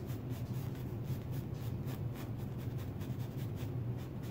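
A number 4 filbert brush with oil paint scratching over a stretched canvas in short, quick strokes, several a second, sketching in outlines. A steady low hum runs underneath.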